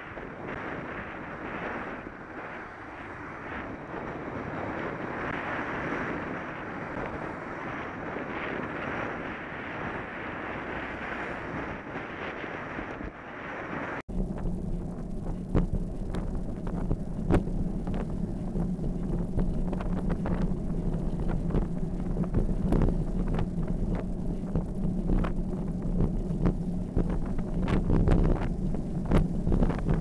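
Wind buffeting the microphone of a camera on a moving bicycle, a steady rushing noise. About halfway through the sound cuts abruptly to a different camera's track: a steady low hum with frequent small clicks and rattles.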